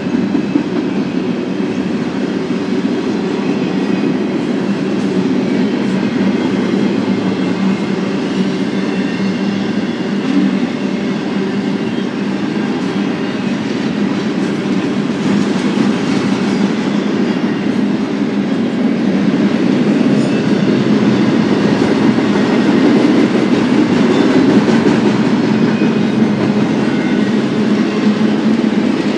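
Cars of an eastbound BNSF intermodal freight train rolling past, a steady noise of steel wheels on the rails that grows a little louder in the second half.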